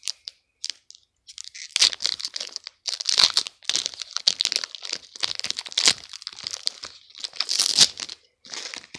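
Foil wrapper of a Pokémon Sun & Moon Guardians Rising booster pack crinkling and tearing as it is pulled open by hand, a run of crackles that starts about a second and a half in and stops near the end.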